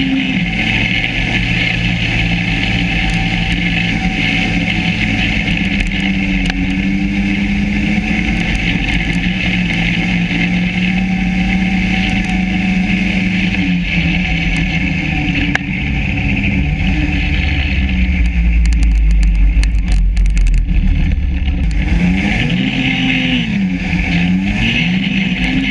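Yamaha SRV 540 snowmobile's two-stroke engine running, its note mostly steady at first. A deep rumble grows louder past the middle, then the engine is revved up and down several times in quick succession near the end.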